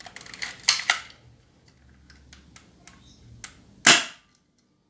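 Airsoft Glock 17 pistol handled with a quick run of clicks and clacks in the first second, then a single sharp shot about four seconds in, the loudest sound, with a short tail. That shot reads about 244 fps with a 0.12 g BB.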